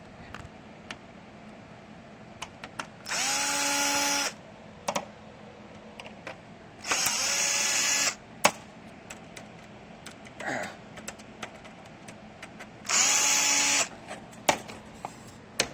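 Small electric screwdriver running in three short bursts of about a second each, driving out screws, with light clicks and taps of handling in between.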